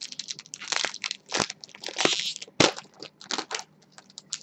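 Foil trading-card pack being torn open and crinkled by hand: a quick run of sharp crackling rustles, loudest about two seconds in, thinning out near the end.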